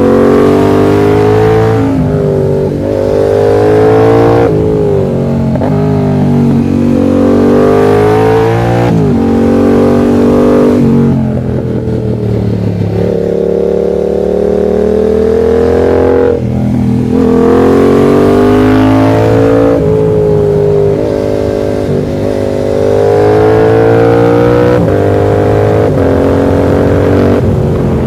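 Yamaha MT-07's 689 cc parallel-twin engine under way, its pitch climbing under acceleration and falling back at gear changes and when the throttle is rolled off, several times over as the bike is ridden through curves.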